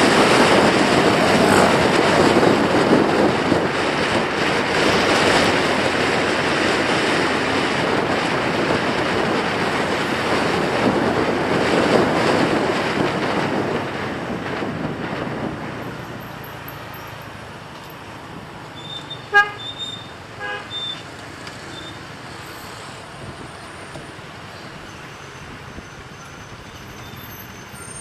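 Wind and road noise from riding a motorbike, which drops away a little over halfway through; then quieter street traffic with a short vehicle horn toot or two.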